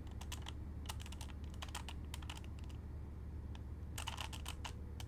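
Plastic clicking and clacking of a standard Rubik's Cube's layers being turned by hand, in quick clusters of turns with short pauses between, over a low steady hum.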